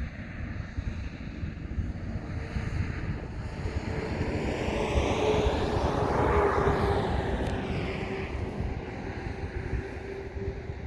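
An aircraft flying over, with an engine drone that swells to its loudest about midway and then fades away, over a low rumble of wind on the microphone.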